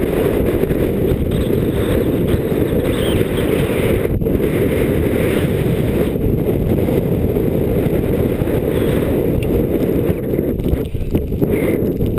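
Wind buffeting a helmet-mounted GoPro's microphone: a loud, steady low rumble, with faint scratchy hiss over it now and then.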